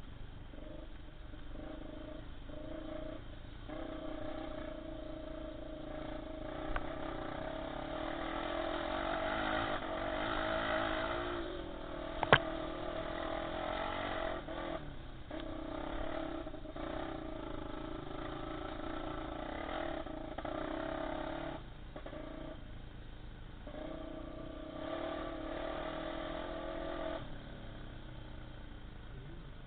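Honda XR250 Tornado single-cylinder trail motorcycle engine running under a ride, its note rising and falling with the throttle and easing off several times. A single sharp knock comes about twelve seconds in.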